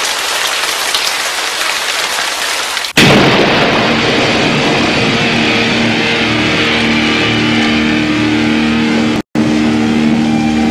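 Storm sound effects: an even hiss of rain, then about three seconds in a sudden loud thunder crack, after which a continuous rumbling storm noise with a steady low hum runs on. It cuts out briefly once, about nine seconds in.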